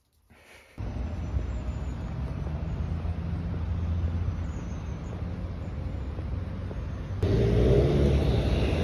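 City street traffic noise, a steady low rumble of passing vehicles, heard while walking along a sidewalk; it starts about a second in and grows louder about seven seconds in.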